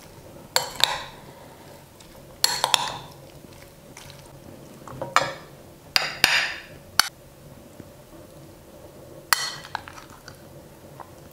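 Metal spoon clinking and scraping against a glass salad bowl while stirring salad, then against a plate as the salad is served out: about six separate sharp clinks and scrapes a second or two apart.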